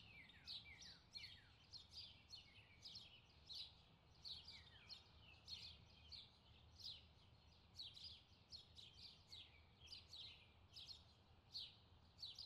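Faint birdsong: many short, quick chirps sweeping down in pitch, two or three a second, going on steadily.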